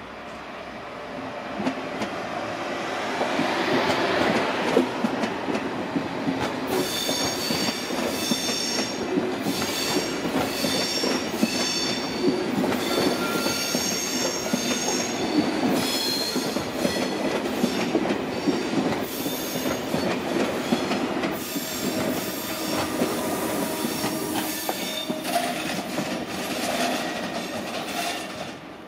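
SBB double-deck push-pull passenger train with an Re 460 electric locomotive rolling slowly over the curves and points of a station throat. The rumble builds over the first few seconds, then high wheel squeal comes and goes from about seven seconds in until near the end.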